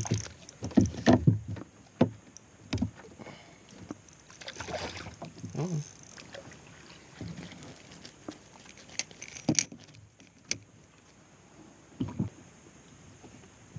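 Irregular knocks and short splashes of a hooked rainbow trout being brought in and handled alongside a small fishing boat, most of them in the first two seconds, with a few sharp clicks later.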